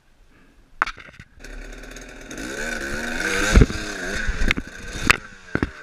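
Enduro dirt bike engine revving in rising and falling bursts as it climbs a rocky step, with several loud knocks of the bike striking rock; the hardest knock comes a little past the middle.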